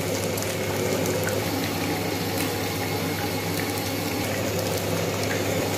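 Fish steaks shallow-frying in hot oil in a pan: a steady sizzle, with a low hum underneath.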